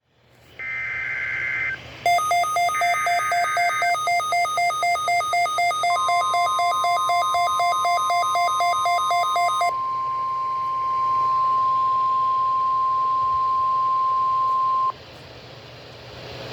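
NOAA Weather Radio test signal: short bursts of warbling SAME data tones, then a rapid two-pitch beeping at about three pulses a second. This overlaps and gives way to the steady 1050 Hz warning alarm tone, which holds for about nine seconds and cuts off sharply.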